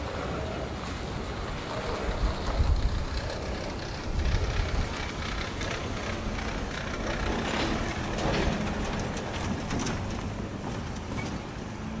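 Rear cars of a freight train rolling away over the rails: a steady rumble of steel wheels on track, with a few louder knocks about two and a half and four seconds in, fading a little toward the end.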